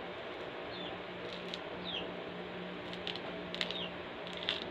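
Firm, unripe rind of a green dalandan (Philippine sour orange) being peeled by hand: faint, irregular squishy tearing with a few short sharp clicks, over a steady low hum.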